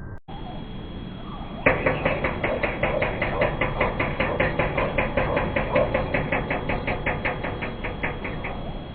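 Northern flicker hammering on a metal roof vent: a fast, even run of loud knocks, about six a second. It starts about two seconds in and keeps going for around seven seconds.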